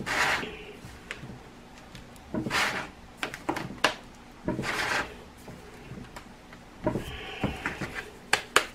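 Gloved hands pressing and rubbing a gritty bath bomb mix into a 3D-printed plastic mold: three short scraping pushes, with sharp clicks of the mold being handled in the middle and near the end.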